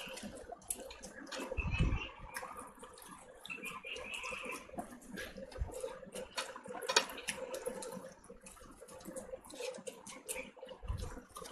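Close-up wet squelching and sticky clicks of bare fingers mixing white rice with chicken curry on a plate, with chewing and lip smacks.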